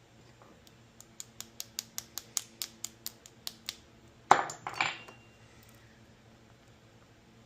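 A quick, even run of metallic clicks, about five a second, for under three seconds, then a louder clatter of small metal parts being handled on the bench during work on a small string-trimmer engine.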